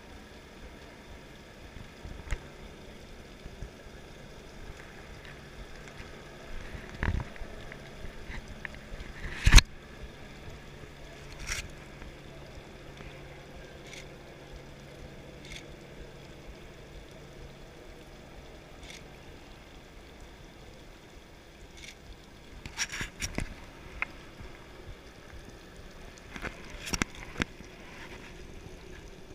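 Steady background noise broken by several sharp bangs and cracks. The loudest comes about ten seconds in, with a quick run of cracks a little after twenty seconds and a few more near the end.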